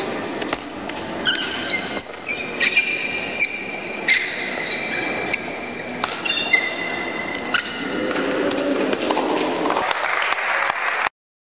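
Table tennis rally: the ball clicking sharply off bats and table in quick exchanges, mixed with short high squeaks of shoes on the wooden hall floor. Near the end the squeaks give way to a low murmur, and the sound then cuts off abruptly.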